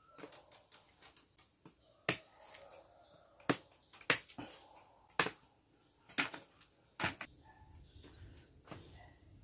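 Bunches of green bananas being handled and set down, giving a series of sharp knocks as the fruit bumps against wood and the clay oven, the loudest six spread over a few seconds.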